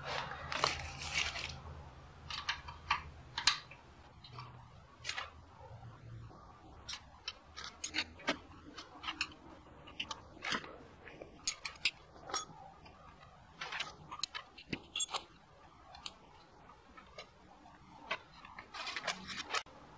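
A metal hand tool clicking and clinking against the rocker arms and valve gear of a Honda GL1100 Gold Wing cylinder head: a string of short, sharp clicks, irregularly spaced.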